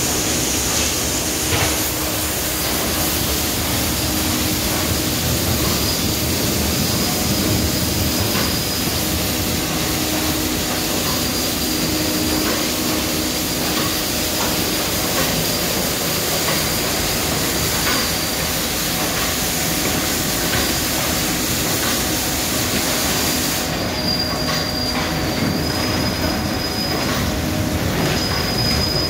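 1993 HANNA automatic car wash running: water jets spraying hard onto a car while hanging cloth curtain strips brush over it, a steady rush of water and machinery. A thin high squeal from the machinery comes and goes over a low hum, and the sharpest part of the spray hiss drops away about three-quarters of the way through.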